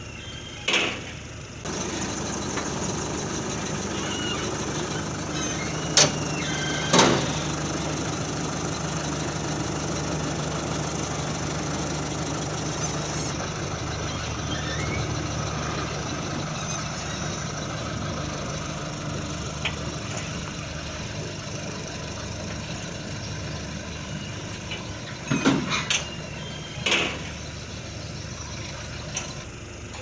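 John Deere combine harvester's engine starting about two seconds in and then running steadily at idle, with a few sharp knocks now and then.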